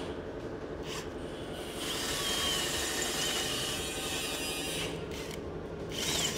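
Kobalt cordless drill running a 5/16-inch bit into a steel frame tube, the motor whirring steadily. The bit cutting the metal gives a wavering high squeal about two seconds in and again near the end.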